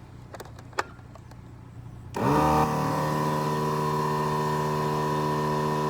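A few light clicks, then about two seconds in an electric motor starts abruptly and runs steadily at a constant pitch.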